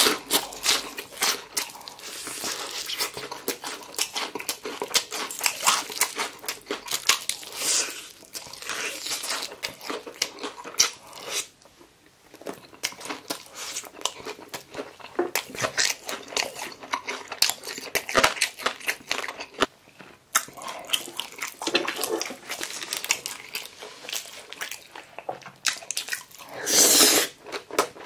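Crunching and chewing of crispy fried chicken: the crisp batter crackles irregularly with each bite, with chewing in between. There is a louder noisy burst near the end.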